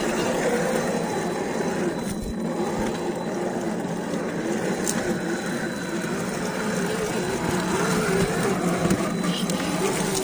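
1:10 scale MST CFX RC rock crawler's brushed 45-turn electric motor and gear drivetrain whining as it drives, the pitch wavering up and down with the throttle.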